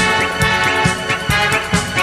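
Upbeat music with a steady, bouncy beat and bright melodic tones.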